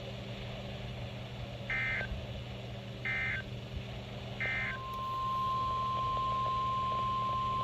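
Emergency Alert System (SAME) data tones from a weather radio broadcast: three short warbling digital bursts about a second and a quarter apart, followed about halfway through by the steady NOAA Weather Radio warning alarm tone, held without a break. A low steady hum runs underneath.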